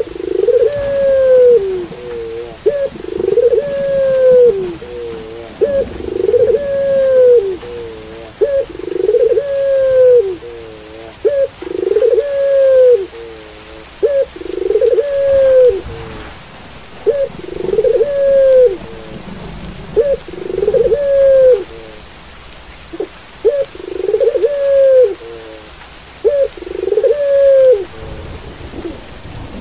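Caged puter pelung dove, a domesticated Barbary dove kept for its drawn-out call, cooing over and over about once every two seconds. Each call is a short note followed by a longer, arching coo.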